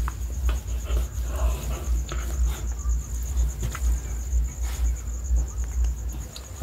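A cricket trilling steadily and high, over low irregular rumbling and rubbing from a hand-held phone being handled, with a few light clicks.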